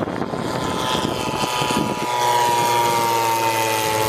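Giant-scale radio-controlled model biplane's engine running through a low pass, growing louder about halfway with its tone slowly falling. A steady low hum joins at the same point.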